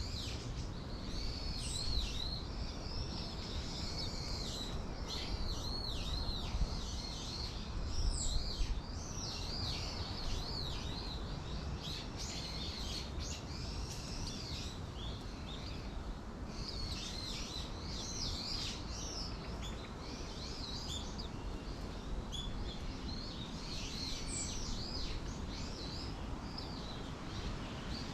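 Several small songbirds chirping and twittering in quick, arched notes that come in clusters, over a steady low background rumble.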